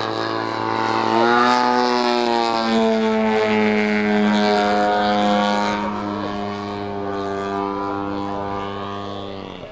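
Desert Aircraft 100 cc twin-cylinder two-stroke gasoline engine and propeller of a large radio-controlled Yak 54 aerobatic model, running at high throttle in flight. The steady buzzing note rises a little in pitch and grows louder about a second in, then fades over the last few seconds.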